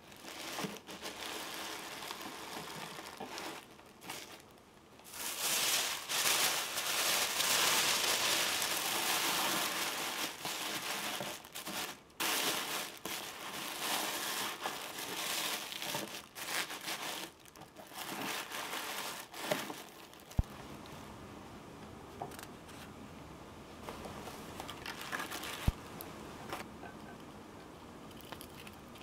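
Tissue paper crinkling and rustling as it is crumpled and tucked into a cardboard box, loudest a few seconds in and coming in bursts, then dying down to quieter handling with a couple of sharp clicks.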